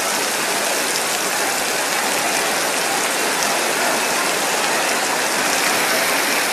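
Heavy downpour splashing onto pavement, a dense steady hiss of countless drops hitting the wet ground.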